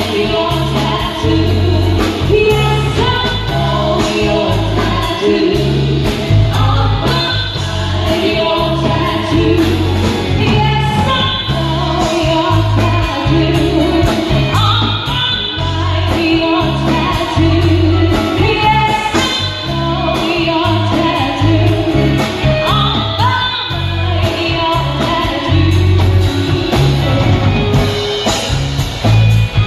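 Live band playing a song with a singer, amplified through a PA system: a strong bass line under the sung melody.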